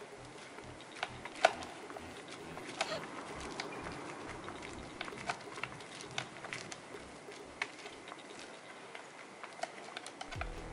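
Irregular small clicks and ticks of a long Allen key working a screw out of a motorcycle's plastic engine skid plate, the metal key tapping and turning in the screw head, with a sharper click about a second and a half in. Music comes in just before the end.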